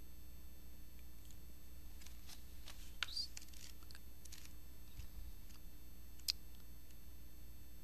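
Faint desk handling noises: a cluster of scratchy clicks about two to four seconds in, then one sharp click about six seconds in, over a steady electrical hum.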